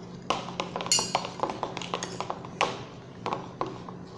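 A spoon clinking and tapping irregularly against a bowl while stirring slime activator, about a dozen separate clinks with a short ring after each.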